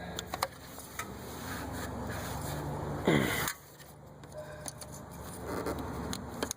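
Light clicks and scrapes as a metal retaining clip is worked by hand onto a VW Passat 1.8T's coolant temperature sender housing, with a brief squeak falling in pitch about three seconds in.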